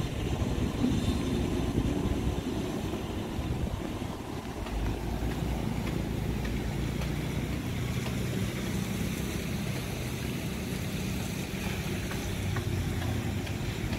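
Engines of passing vehicles running as a steady low rumble, with a deeper hum setting in about five seconds in.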